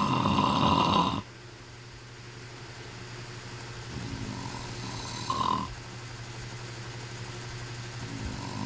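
A man snoring in his sleep. A loud snore ends about a second in, and another builds from about four seconds to a loud peak near five and a half seconds. A third starts at the very end. A steady low hum runs underneath.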